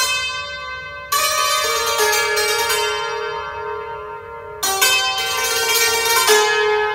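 Santur (hammered dulcimer) played solo with light hammers, in an improvised taqsim in a quarter-tone scale. A sharp strike about a second in and another a little past halfway start clusters of ringing metal-string notes that sustain and fade between the strikes.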